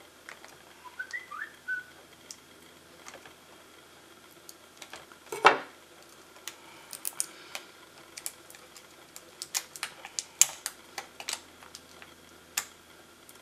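Scattered small clicks and crackles of hands peeling tape and handling the cable on the back of a laptop LCD panel, with one louder snap about five and a half seconds in and a run of clicks after it. A few faint short squeaks come about a second in.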